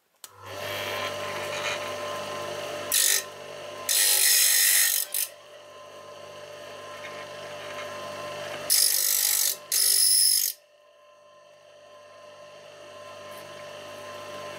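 Small bench saw-blade grinder starting up and running with a steady motor hum. Four short bursts of grinding break in as carbide-tipped saw teeth are touched against its diamond wheel; the longest lasts about a second.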